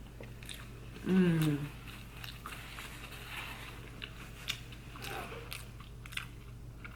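Close-miked chewing of a mouthful of Beyond Meat burger: many small wet mouth clicks and soft crunches. About a second in comes a short hummed vocal sound that falls in pitch, and a fainter one a few seconds later.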